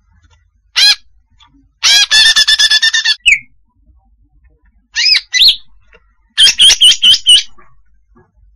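Female greater green leafbird (cucak hijau) calling: a single arched whistle about a second in, then a rapid run of about ten clear notes, two arched whistles midway, and another rapid run of about eight notes near the end.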